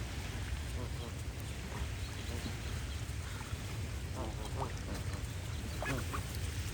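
Waterfowl calling: short, scattered nasal calls, a few over several seconds, over a steady low background rumble.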